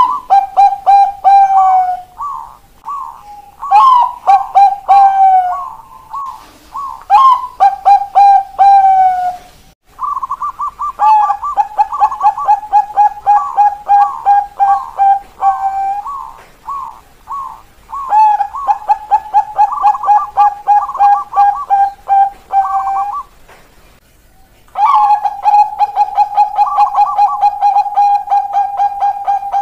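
Bangkok zebra doves (perkutut) cooing in long, rapid runs of short repeated 'kok' notes. Several phrases are separated by brief pauses, and at times two pitches overlap.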